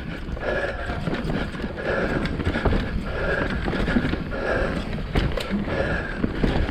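Mountain bike clattering down a rocky trail: tyres rumbling over rock and roots, with frequent knocks and rattles from the bike and a rough, steady rush.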